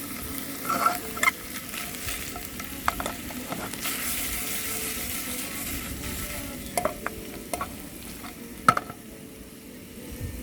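Firewood burning: a steady hiss with scattered crackles and pops, one sharp pop near the end louder than the rest.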